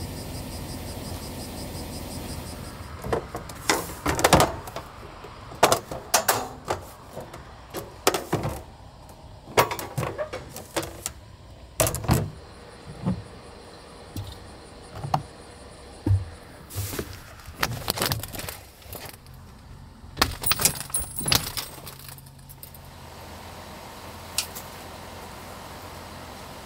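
Gear being handled and packed away in the back of a van: a long string of rattles, clicks and knocks. Near the end the knocks stop and a steady low hum remains.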